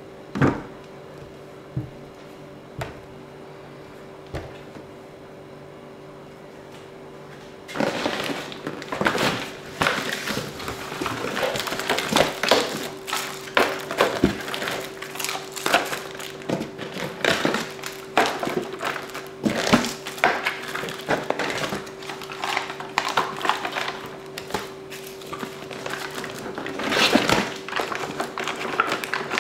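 A few light knocks of plastic juice bottles being set down on a table, then, from about eight seconds in, continuous crinkling and rustling of foil Capri-Sun drink pouches as they are taken from a cardboard case and packed into a clear plastic bin. A faint steady hum runs underneath.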